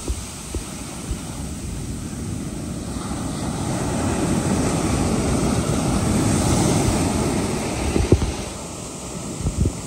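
Ocean surf breaking and foamy water washing up and running back over the sand, swelling about halfway through, with wind on the microphone. A few short thumps near the end.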